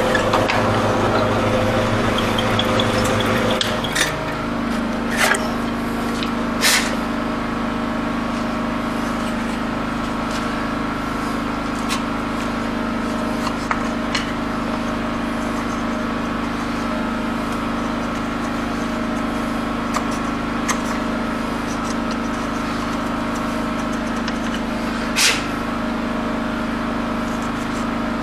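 Mortise machine motor running steadily while cutting a mortise in wood, its hum shifting slightly about four seconds in, with a few short sharp knocks, three close together early and one near the end.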